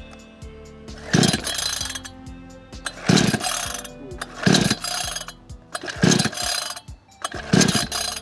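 Two-stroke chainsaw being pull-started: five pulls on the starter cord, each a short rasp as the engine turns over, without it catching and running. Background music plays underneath.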